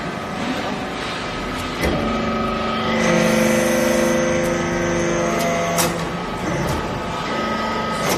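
Hydraulic metal-shavings baler running: a steady motor and pump hum that grows fuller and louder for a few seconds in the middle, with a few sharp metallic knocks.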